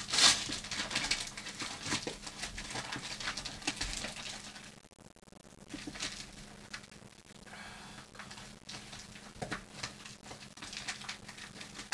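Parcel packaging being handled and pulled apart: irregular rustling and crinkling of wrapping and cardboard with small knocks, easing off briefly about five seconds in.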